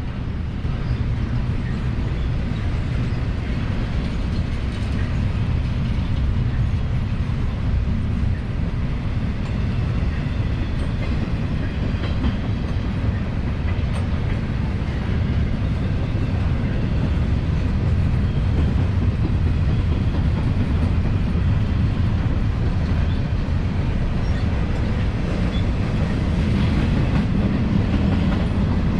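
CSX freight train passing close by: a steady rumble of wheels rolling over the rails, with a faint clickety-clack.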